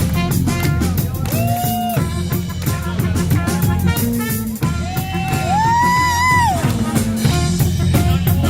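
Live reggae band playing with a trumpet solo over drum kit and bass. The trumpet holds a few long, sliding notes, the longest and highest about two-thirds of the way through.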